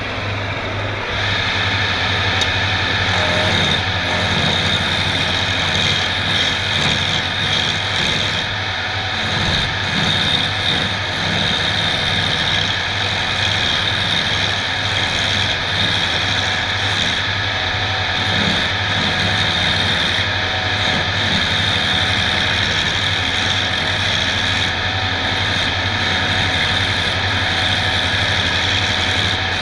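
An electric woodworking machine running steadily, its motor giving a constant hum with a steady high whine above it.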